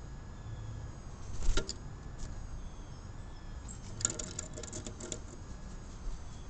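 Sharp metallic clinks and taps from a hanging bird feeder as a bird pecks at it: a loud knock about a second and a half in, then a quick rattling run of taps lasting about a second.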